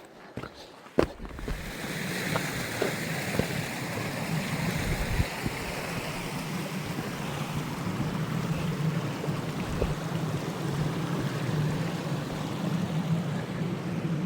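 A few footsteps on icy ground, then from about a second and a half in the steady rush of a mountain creek.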